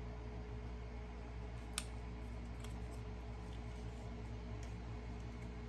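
A few faint, scattered clicks of plastic toy parts and packaging being handled, the sharpest about two seconds in, over a steady low hum.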